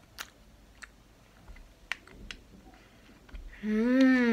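A few soft mouth clicks of chewing a grape candy, then near the end a loud closed-mouth "mmm" that rises and falls in pitch, an appreciative hum at the taste.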